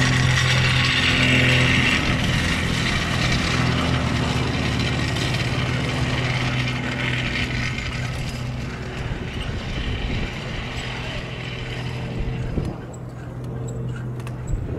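A Grob G115E Tutor trainer taxiing close by, its four-cylinder Lycoming piston engine and propeller running steadily at taxi power. The drone grows fainter over the last few seconds as the aircraft moves away.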